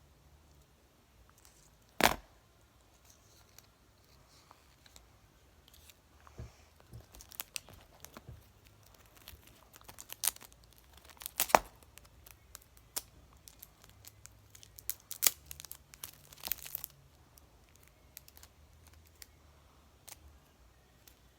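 Clear adhesive tape being pulled off the roll and pressed over paper, with paper crinkling: a sharp click about two seconds in, then scattered short rips and crackles.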